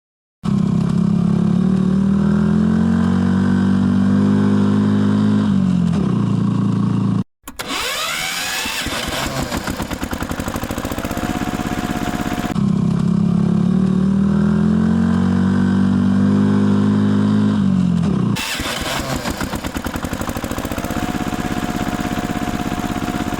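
A recorded vehicle engine running steadily, then revving with rising pitch. The same idle-then-rev sequence plays twice over, as a looped engine sound effect.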